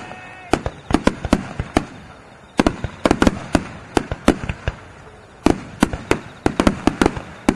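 Aerial fireworks bursting in a dense barrage, many sharp bangs a second at irregular spacing, from a wide star mine finale. The background falls quieter in the last second or so while the bangs continue.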